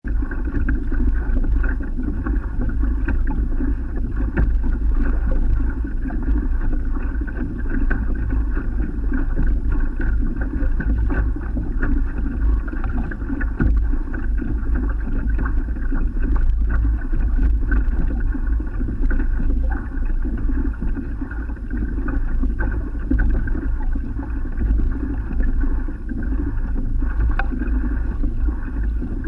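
Steady wind noise on a kayak-mounted camera's microphone, with small water slaps and lapping against the plastic hull of a drifting sit-on-top kayak.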